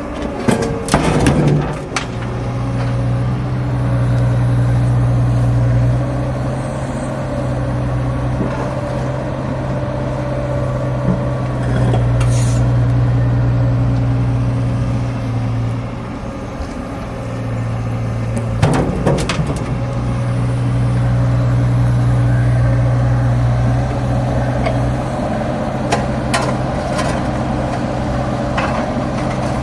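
Cat 305.5 mini excavator's diesel engine running steadily, its note swelling and easing as the hydraulics take load. Clattering knocks of broken concrete slabs being gripped and set down, about a second in, again about two-thirds of the way through, and several times near the end.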